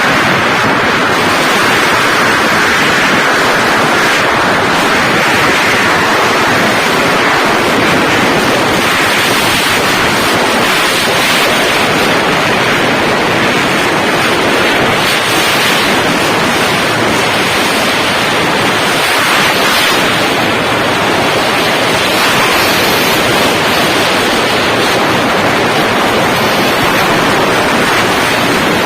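Wind rushing over the microphone of a camera on a moving motorcycle, a steady loud rush with no clear engine note.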